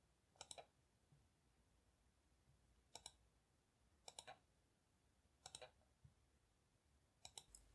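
Faint computer mouse clicks, five times over several seconds, each a quick pair of ticks.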